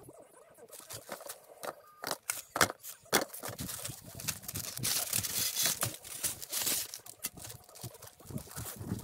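Plastic vapor-barrier sheeting crinkling and rustling under a person crawling and shifting over it, with scattered sharp clicks and knocks.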